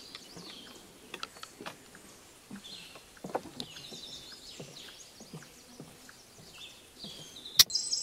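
Several songbirds singing in short, high phrases, with scattered soft knocks and one sharp click near the end.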